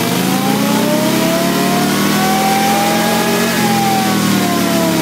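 Harley-Davidson motorcycle's V-twin engine revving: its pitch climbs for about two seconds, holds briefly, then falls back as the throttle is eased off.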